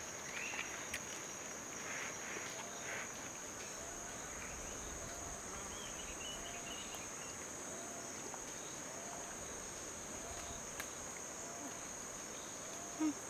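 Steady high-pitched insect chorus of a tropical forest, with a faint short call repeating about once a second underneath.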